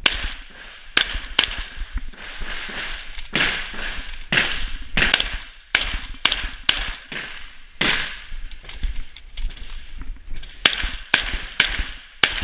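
Shotgun firing rapidly, a dozen or more shots in quick pairs and short strings with brief pauses between, each shot trailing a short echo.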